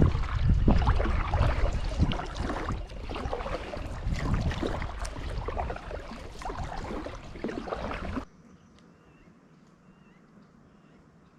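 A kayak under way on a lake: loud rushing and buffeting noise with water sloshing and small knocks against the hull. About eight seconds in it cuts off abruptly to a faint hush with a few small high chirps.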